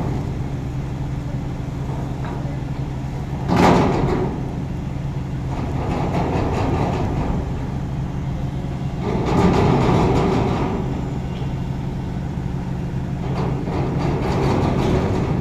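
Heavy diesel engine idling steadily, with a sharp metallic clank about four seconds in and a louder rush of machine noise lasting over a second around the middle.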